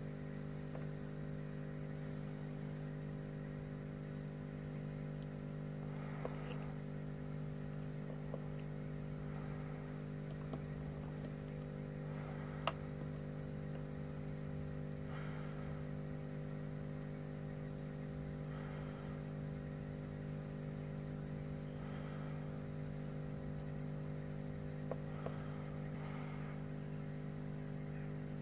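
Steady low hum made of several pitched tones, with a few faint taps and one sharp click about twelve seconds in.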